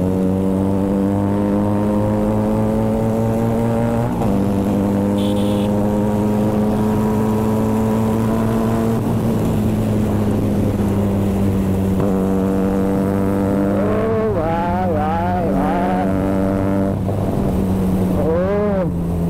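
Benelli TNT 300 parallel-twin with an SC Project exhaust running at a steady cruise: one even engine note that slides slowly lower, steps up in pitch about four seconds in, and rises and falls several times with the throttle near the end.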